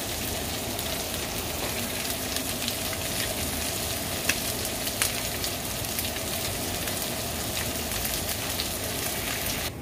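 Boneless chicken thighs sizzling and frying in their own fat in a skillet as they brown, with a few sharp pops. The sizzle cuts off suddenly near the end.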